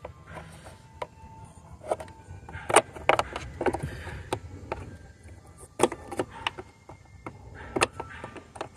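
A metal wrench clicking and knocking against a bolt head in an engine bay, with sharp irregular clicks several times a second at the busiest moments. The bolt head is a bit worn and the tool does not grip it well.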